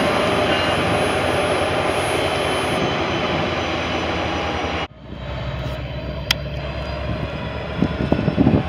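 Train passing close by: a steady roar of wheels on rail with faint steady tones. It cuts off abruptly about five seconds in to a quieter low rumble, with gusts of wind on the microphone near the end.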